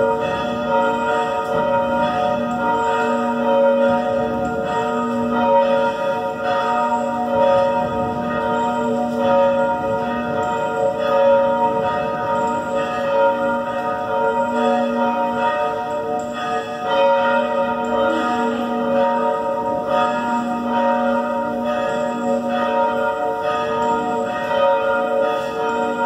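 Church bells rung by hand from ropes, struck again and again so the strokes overlap into one continuous ringing.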